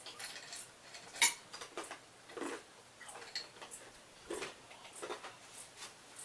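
Scattered light clicks and taps of eating utensils against a bowl of noodles, the sharpest about a second in.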